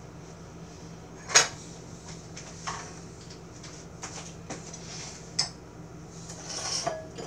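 Kitchenware clatter of a metal baking pan, spatula and plate: one sharp clank about a second and a half in, several lighter knocks and clinks, and a short scrape near the end.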